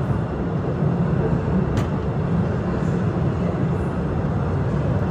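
Narrow-gauge cave train running on its rails: a steady low rumble, with a brief sharp high sound about two seconds in.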